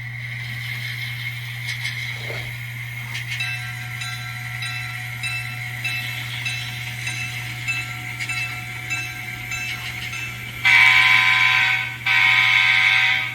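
Soundtraxx Tsunami2 KN-1 sound decoder in an N scale model diesel locomotive, playing through its small speaker: a steady running sound, then an evenly repeating locomotive bell from about three seconds in, then two long blasts of a multi-chime air horn near the end, the loudest part.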